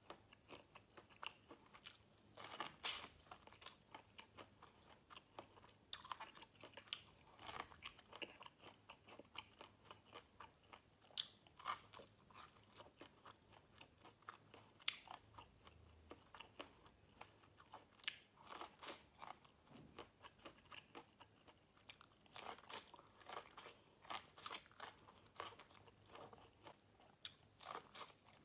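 Biting and chewing kernels off a boiled corn cob, close up: a string of short, irregular crunches with quieter chewing in between.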